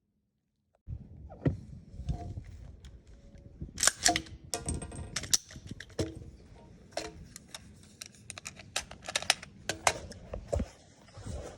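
A series of sharp, irregular clicks and knocks, with a few louder ones, over a low background rumble. It starts abruptly about a second in.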